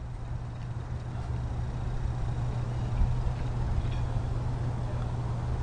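Steady low mechanical hum over a rumbling urban background.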